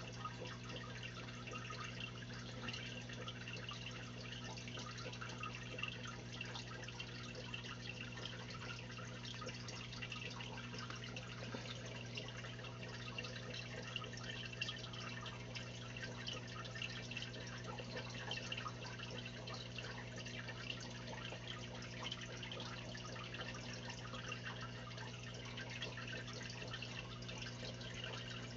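Aquarium filter running: continuous bubbling and dripping of water over a steady low hum.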